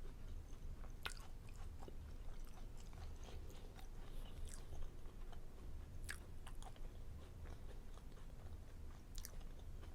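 A person chewing and eating, with scattered short wet smacks and clicks of the mouth, the sharpest about a second in, around six seconds in, and near the end.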